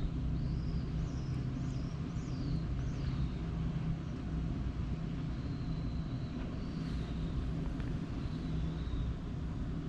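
A steady low engine drone, with faint high chirps over the first three seconds or so.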